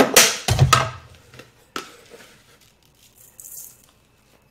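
Handling of a plastic container of desiccated coconut: a loud clatter and knock in the first second. Then a few light clicks and a brief soft hiss as the coconut is tipped into a stainless steel mixing bowl.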